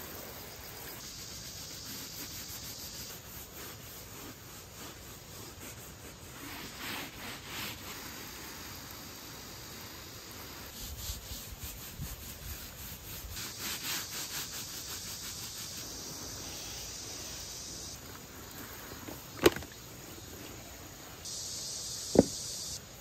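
Soft sponge scrubbing wet plastic panels in repeated rubbing strokes, with insects buzzing in the background. Two sharp knocks near the end.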